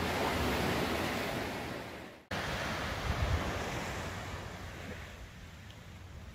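Ocean surf washing on a beach, with wind buffeting the microphone in low rumbling gusts. The sound cuts off abruptly for an instant about two seconds in, then resumes.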